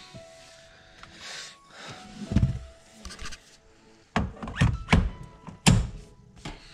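A few dull thunks and knocks, scattered and irregular, from a steering wheel and quick-release coupling being handled and seated on the hub, over faint background music.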